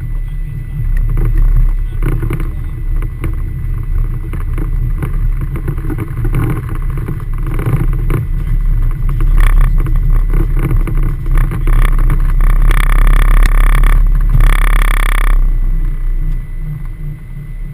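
Cockpit noise of a Gulfstream G550 on its takeoff roll: a loud, steady low rumble from its Rolls-Royce BR710 turbofans at takeoff thrust and the wheels on the runway. About three-quarters of the way in come two short bursts of a higher-pitched sound.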